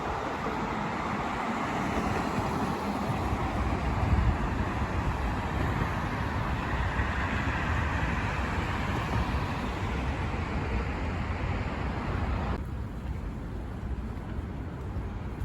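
Steady rush of street traffic. The higher part of the noise drops away suddenly near the end, leaving a quieter, duller ambience.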